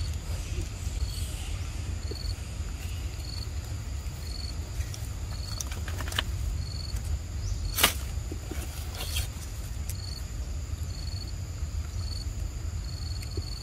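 Insects chirping: a short high chirp repeats about once a second over a steady higher-pitched drone and a constant low rumble. A few sharp clicks come near the middle, the loudest about eight seconds in.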